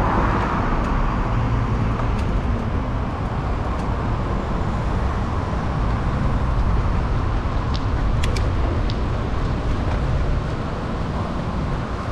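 Steady road and traffic noise heard from a moving bicycle, with a few short, sharp clicks about eight seconds in.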